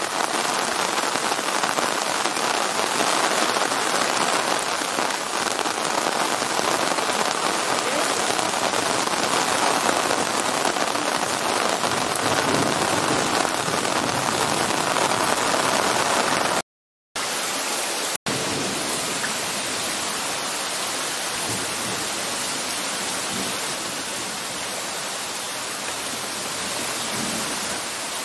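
Torrential rain pouring steadily onto a flooded street, a dense even hiss. The sound cuts out completely for about half a second about two-thirds of the way through.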